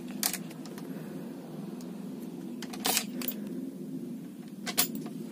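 Car keys jingling and clicking as the key is put into the ignition lock and turned, a few sharp clicks with the loudest about three seconds in; the engine is not cranked. A steady low hum runs underneath.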